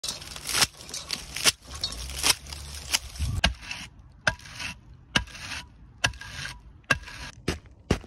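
Thatching reed being beaten into place with a wooden leggett: sharp knocks about once a second over the scraping rustle of dry straw.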